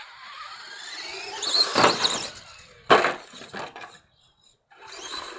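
RC monster truck's motor whining and rising in pitch as it speeds up, then a sharp crash of the truck landing hard about three seconds in. The motor picks up again near the end.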